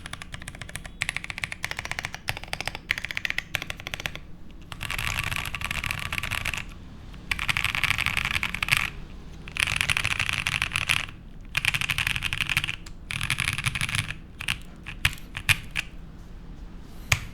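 Typing on a top-mount custom mechanical keyboard with lubed Boba U4T tactile switches, a polycarbonate plate and GMK keycaps. Fast typing at first, then several runs of very rapid clicking about two seconds each, then a few separate keystrokes near the end.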